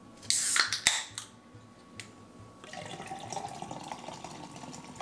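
A small can cracked open with a brief loud hiss and clatter, a click, then liquid from the can pouring steadily into a metal tumbler from a little before the three-second mark.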